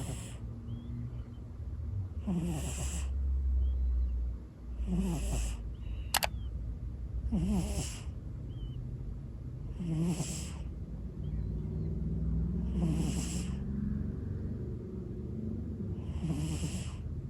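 A cat snoring in its sleep, seven breathy snores at about one every two and a half seconds. A single sharp click about six seconds in.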